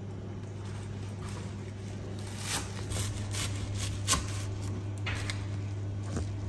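Cleaver chopping a bunch of thin green stalks on a wooden cutting board: a run of irregular knife strikes through the stalks onto the board, starting about two and a half seconds in, over a steady low hum.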